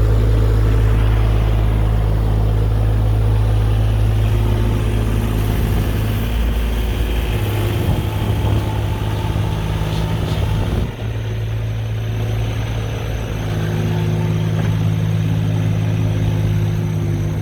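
JCB 8026 mini excavator's diesel engine running steadily. Its hum wavers and loosens for a few seconds in the middle, then settles back to a steady run.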